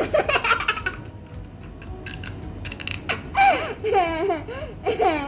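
A young boy laughing and giggling in short bursts, once right at the start and again from about three seconds in.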